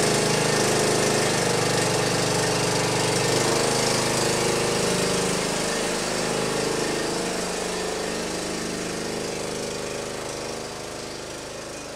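John Deere D120 riding mower's Briggs & Stratton Intek engine running steadily, its decompression camshaft newly replaced, growing gradually fainter as the mower drives away.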